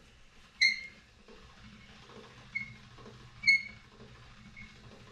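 Hand-cranked pasta machine rolling a sheet of dough. The crank turns with a soft rumble and a sharp metallic ping about once a second; two of the pings are much louder than the rest.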